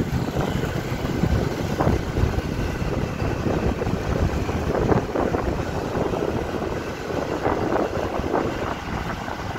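A motorbike riding along a road: wind buffets the microphone in uneven gusts over the low hum of the engine.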